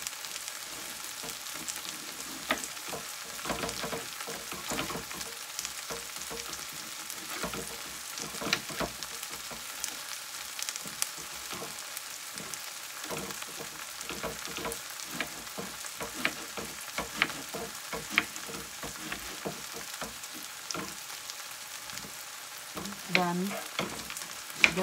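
Onions and eggplant pieces sizzling in olive oil in a frying pan, with scattered sharp taps of a knife slicing eggplant on a wooden cutting board.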